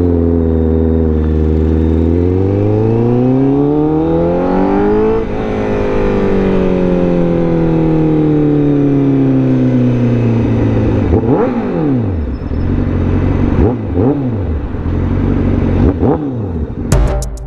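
Honda CBR1000RR-R SP inline-four engine pulling away: revs climb for about three seconds, then the throttle closes and the revs fall slowly as the bike slows. Three short blips of the throttle come near the end.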